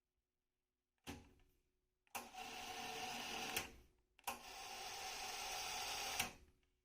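Sony TC-K555 cassette deck's transport mechanism: a sharp click about a second in, then two steady motor-and-tape whirring runs of roughly one and a half and two seconds, each starting and stopping abruptly, the second ending in a click.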